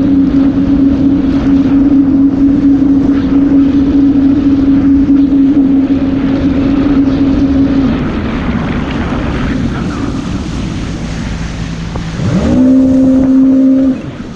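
2005 Yamaha VX110 WaveRunner's four-stroke engine running at a steady high speed, with wind on the microphone. About eight seconds in the throttle comes off and it drops to a lower, quieter run; near the end it revs up quickly to a steady pitch and then cuts back sharply.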